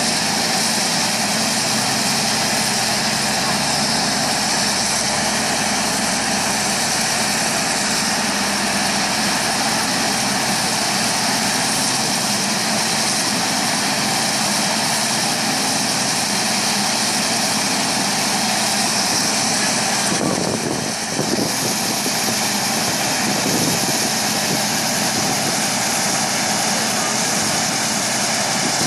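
Deutz-Fahr 6095 HTS combine harvester running steadily under load, harvesting corn while unloading grain through its auger. The machine noise is loud and even, with one brief dip about two-thirds of the way through.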